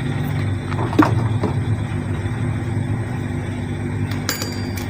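Front-loading washing machine drum turning with a steady low rumble, a sharp knock about a second in and a few clicks near the end; the rumble and knocking are the sign of worn drum bearings.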